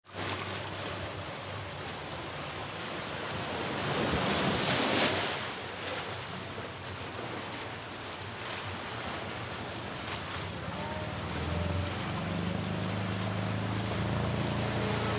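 Sea waves surging and washing through the gaps between coral rocks at high tide, with wind buffeting the microphone. The surge swells to its loudest about four seconds in.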